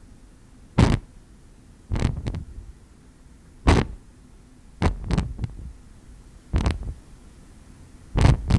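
Wind whip foley: a whip swished through the air in short whooshes, about six swings spaced a second or so apart, some coming in quick pairs.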